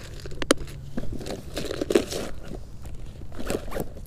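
A clear plastic tackle box being handled, giving irregular clicks and rustles, with a sharp click about half a second in. A fleece jacket brushes close to the microphone.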